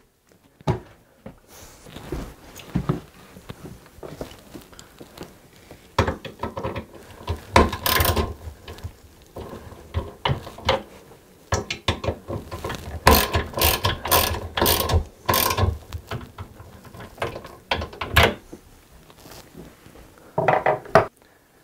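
Hand tool tightening the screws on a metal TV wall-mount plate: bursts of rapid clicking, with scattered knocks and rattles from the bracket, densest about two-thirds of the way through.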